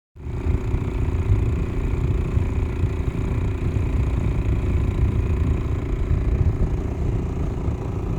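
Small boat's motor running steadily while under way, a continuous low rumble.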